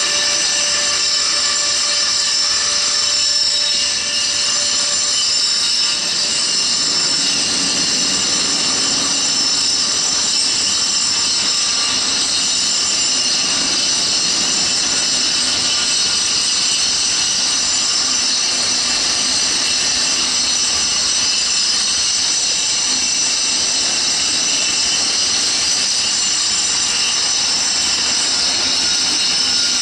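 A metronom double-deck passenger train rolling slowly past, its wheels giving a steady, high-pitched squeal made of several tones at once, over the noise of the coaches running on the rails.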